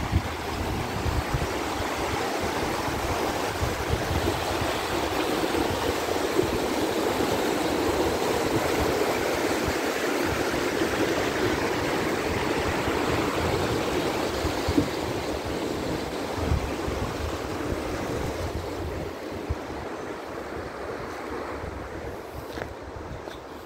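Steady rushing noise with irregular low rumbling, loudest around the middle and fading over the last few seconds.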